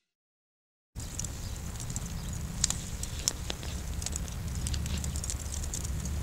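Pecan wood logs burning on lump charcoal, crackling with scattered sharp pops over a steady low rumble. It starts about a second in.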